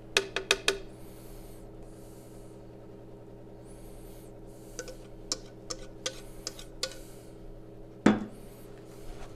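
Metal utensils clinking and scraping against a stainless mixing bowl and a mesh sieve as crêpe batter is poured and worked through the strainer. A quick run of clinks comes at the start and a single loud knock about eight seconds in.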